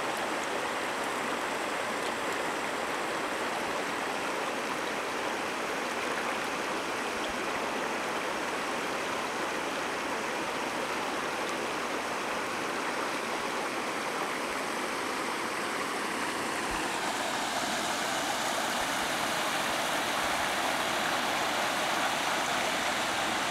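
Creek water running over a gravel bed, a steady rush. About two-thirds of the way through it becomes fuller and a little louder, as faster water over a riffle.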